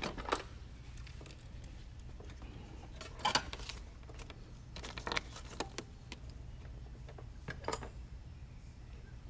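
Hands handling tools and small parts on a workbench: a few scattered clicks and rustles over a low steady hum.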